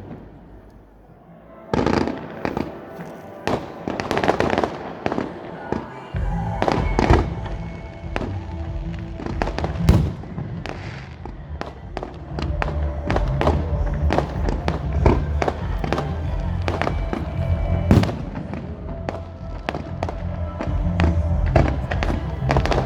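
Firework display: a rapid string of bangs and crackles from bursting shells. It starts after a quiet second and a half and gets denser and more continuous.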